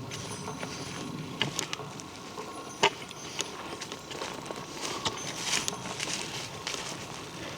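Footsteps on a woodland trail, with leaves and twigs rustling and crackling underfoot and a sharp snap about three seconds in.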